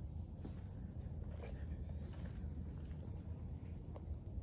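Steady chorus of late-summer insects, a continuous high buzz, over a low rumble, with a few faint soft clicks about half a second, a second and a half, and four seconds in.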